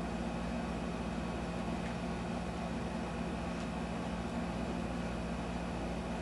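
Steady low hum and hiss of room background noise, with a faint click a little past halfway as a cartridge is handled against an e-cigarette atomizer.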